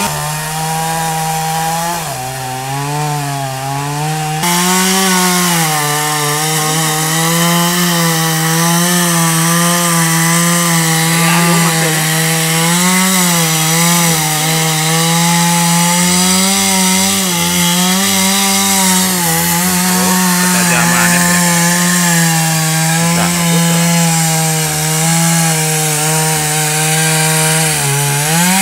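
Stihl MS 170 two-stroke chainsaw running at full throttle while cutting through a tree trunk, its engine note wavering continuously as the chain bites into the wood. Near the end the pitch rises sharply.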